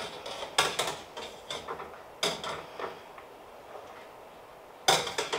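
Wire spider strainer clinking and scraping against a stainless saucepan as a tomato is held in simmering water. It makes a few irregular metallic clicks, then a louder knock near the end.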